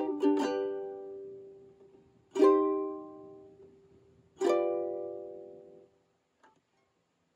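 Ukulele strumming a Cm chord: the last few quick strums of a pattern at the start, then two single strums about two seconds apart, each left to ring out and fade.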